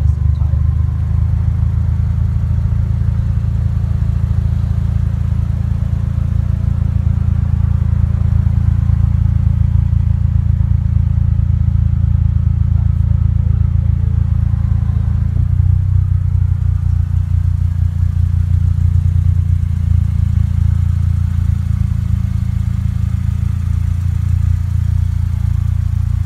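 2003 Toyota Celica GT-S's 1.8-litre four-cylinder idling through an Invidia catback exhaust: a steady, deep exhaust rumble. The tone shifts slightly about halfway through.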